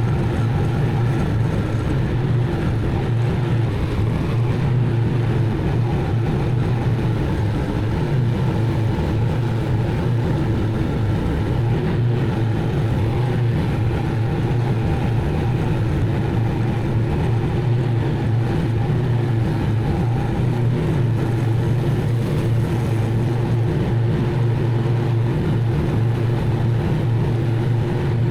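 Zero-turn mower's engine running steadily while mowing, a continuous low drone that holds an even level throughout.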